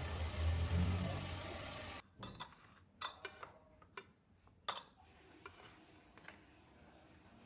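A steady rushing noise with a low hum cuts off suddenly about two seconds in. Then come scattered light clinks and taps of dishes and cutlery, about half a dozen, the sharpest near the middle.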